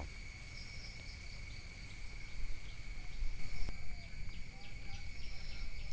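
Field insects, crickets, chirring steadily in two constant high tones over a low rumble.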